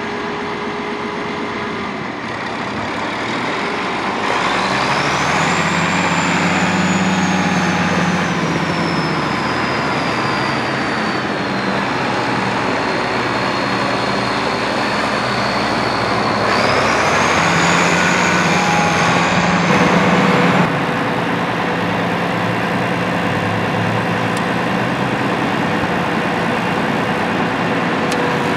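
1976 International 1486's turbocharged six-cylinder diesel engine running as the tractor drives, revving up about four seconds in with a high turbo whistle that climbs sharply, then slowly sinks. The whistle climbs again about halfway through, and the engine note drops back about two-thirds of the way through.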